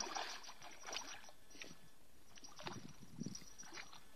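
A hooked fish splashing at the water's surface in the shallows, loudest in the first second and then dying down to faint sloshes and ticks.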